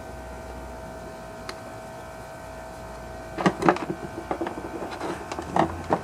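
Steady background hum, then from about three and a half seconds in a run of small clicks and knocks from chainsaw parts being handled while fuel lines are pushed onto the primer bulb and carburetor.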